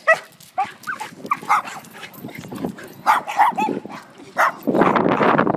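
A dog barking in short, high-pitched yaps, about half a dozen, followed near the end by a burst of rushing noise.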